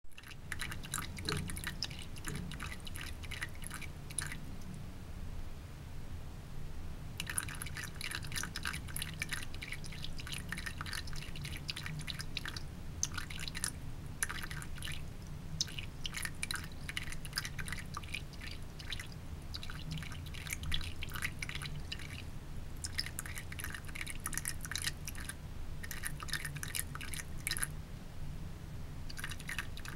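Thin stream of water trickling from a bathroom sink faucet into the basin: a rapid patter of fine drips and splashes that comes in long spells, with lulls of a few seconds twice, over a steady low hum.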